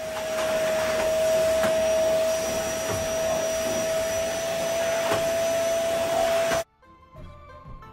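Canister vacuum cleaner running on a carpet: a steady rush of air with a constant whine over it. It cuts off suddenly about six and a half seconds in.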